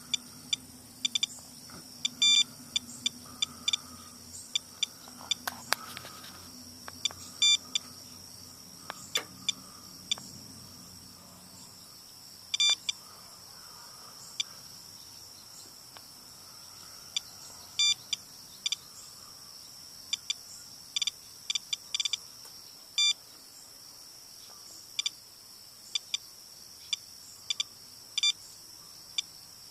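Geiger counter beeping at random, irregular intervals, roughly one to two counts a second with occasional quick clusters, as it measures radiation in rainwater runoff; the count is elevated, which the owner puts at between 6 and 8 times his normal background.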